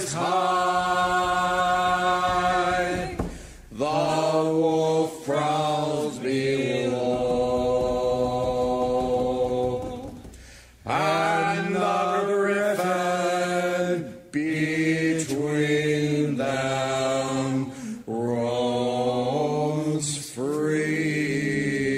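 Singing: a song sung in long, held notes, with short breaks between phrases every few seconds.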